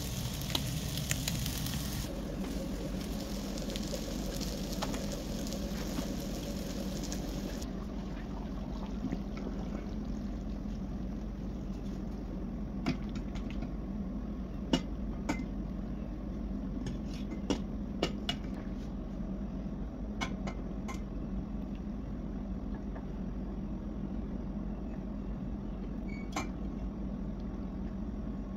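Frying sizzle briefly at the start, then a steady low hum with scattered light clinks and taps of a ladle against a steel pot and a plate while stewed tripe is served.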